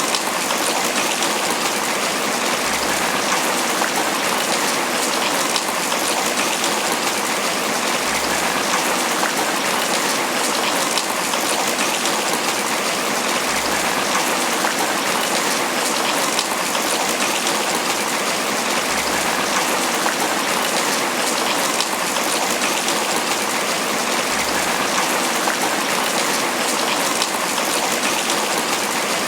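Steady tropical rain pattering on banana leaves, an even, unbroken patter.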